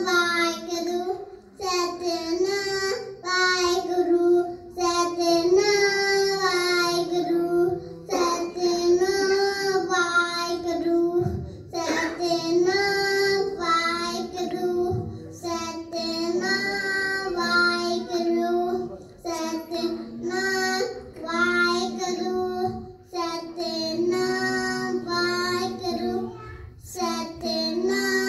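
Young girls singing kirtan, a Sikh devotional hymn, in long held phrases through microphones. A harmonium drone and tabla accompany them.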